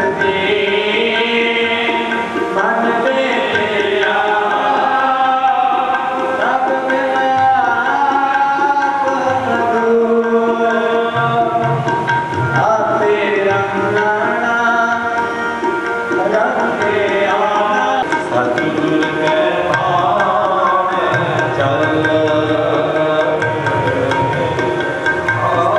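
Sikh kirtan: harmoniums sounding held chords under a sung melody, with tabla keeping the beat.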